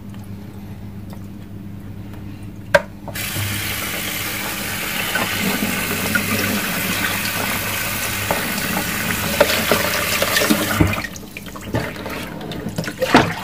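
Tap water running into a sink as a steady hiss. It starts about three seconds in, just after a sharp click, and stops about eleven seconds in, followed by a few small knocks.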